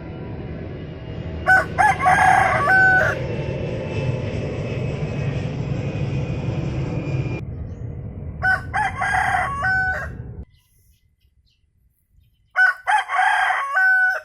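A rooster crowing three times, each crow about a second and a half long with the same stepped rise and fall in pitch. Steady background noise runs under the first two crows and stops abruptly before the third.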